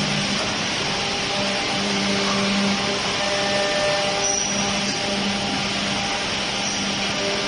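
Woodworking machinery running steadily, a continuous hiss with a low hum that drops out briefly a few times.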